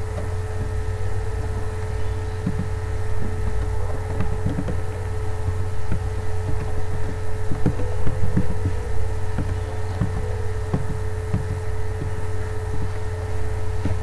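Computer keyboard being typed on, a run of irregular key clicks. A loud steady low electrical hum with a fainter steady whine runs under them.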